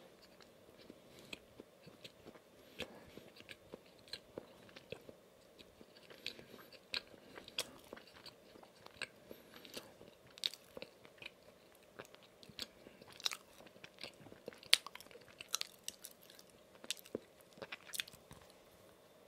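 Close-miked chewing of a soft white-iced donut with sprinkles: many short, sharp mouth clicks. Another bite is taken near the end.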